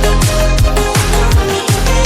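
Background electronic pop music with no singing: a steady beat of deep bass notes that slide downward in pitch, under sustained synth tones.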